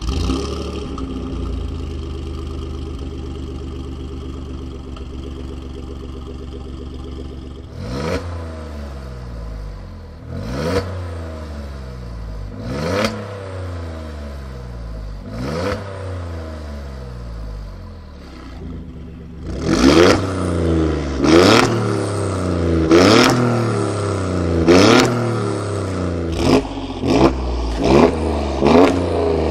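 Alfa Romeo Giulia Quadrifoglio's twin-turbo V6, fitted with a catless downpipe and a Capristo cat-back exhaust, starts up and idles. It is then blipped in single revs about every two and a half seconds with the exhaust valves closed. About two-thirds of the way through it gets louder with the valves open, and the revs come in quicker succession.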